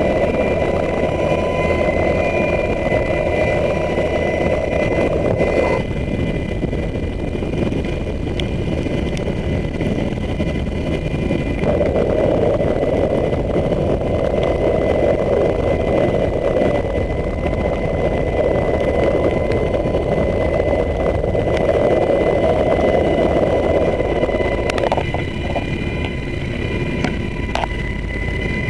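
Rescue helicopter's turbine engine and rotor running steadily, heard from the open cabin door during a hoist, with a steady high whine under the noise. A louder rushing sound drops out about six seconds in and swells back from about twelve seconds to near the end.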